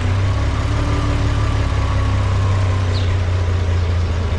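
International Harvester 460 tractor engine idling steadily just after starting, a cold start after sitting unused for a month.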